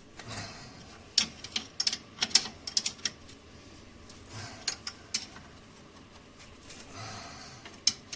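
Irregular sharp metallic clicks and clinks of hand tools and bolts being handled, in a quick cluster a second or two in and a few single clicks later.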